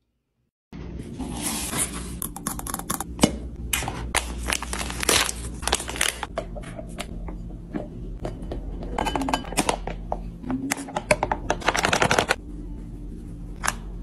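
Kitchen restocking sounds starting about a second in: packaging and containers being handled, with a busy run of clicks, knocks, rustles and crinkles.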